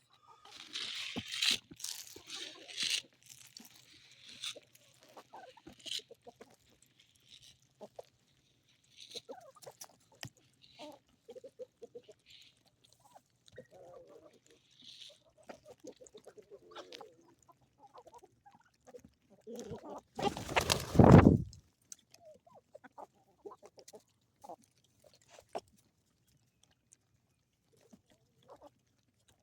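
A flock of chickens clucking softly on and off. In the first three seconds there are a few sharper, harsher bursts, and about twenty seconds in a loud low rumble lasting over a second is the loudest sound.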